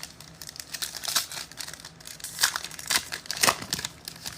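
Foil wrapper of a football trading card pack crinkling and tearing as it is ripped open by hand, in irregular crackles.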